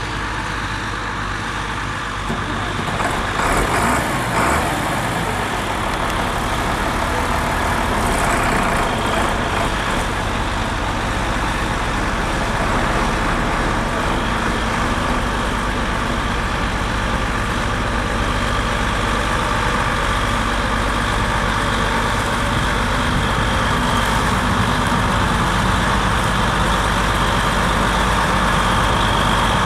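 Large articulated four-wheel-drive tractor's diesel engine running steadily as the tractor moves with a reversible plough, growing a little louder over the first few seconds.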